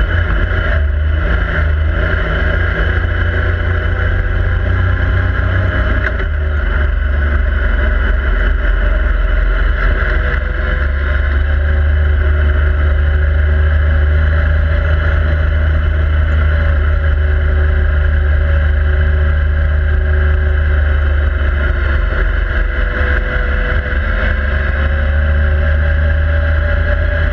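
Yamaha YXZ1000R SS side-by-side's three-cylinder engine running under way on a dirt trail, heard from inside the cab: a steady, deep engine drone with a brief dip about six seconds in.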